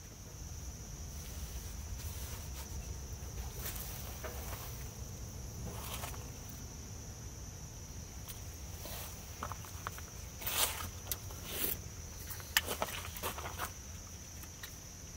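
A steady, high-pitched insect trill runs unbroken over a low background rumble. A few short clicks or rustles come about two-thirds of the way in.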